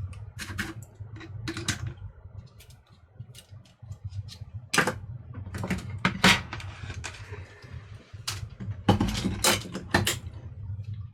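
Irregular sharp clicks and taps of tools and small parts being handled during work on a toaster's circuit board, over a steady low hum.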